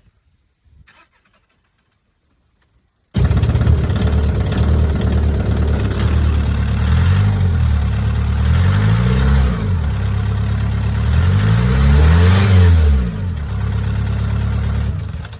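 A VW Mk4's engine starts about three seconds in and runs, its revs rising and falling twice. The whining noise that normally follows a start is not there this time.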